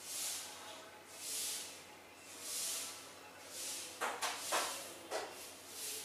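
A soft, high hiss pulsing about once a second, with a few sharp rustling clicks about two-thirds of the way through.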